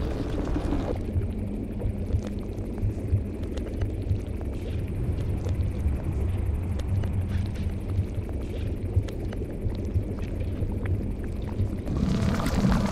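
Ambient sound-design soundtrack: a low, steady rumbling drone with faint scattered clicks. In the last second it turns brighter, with a bubbling sound.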